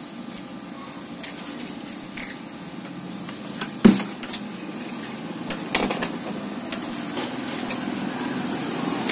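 Small clicks and taps from handling thin enamelled copper winding wire: drawing it off a spool and threading it through an empty marker-pen barrel. One sharper click comes about four seconds in, over a steady low hum.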